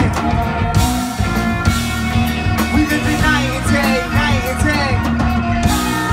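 Live rock band playing: drums, bass, electric guitar and keyboard together, with vocals over the top.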